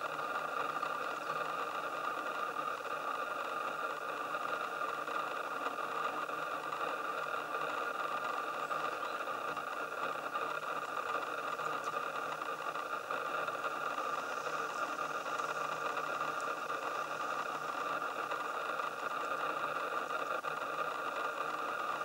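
Steady, unchanging whir from a Canon 500mm f/4 L IS lens's image-stabilizer motor, picked up by the camera's built-in microphone.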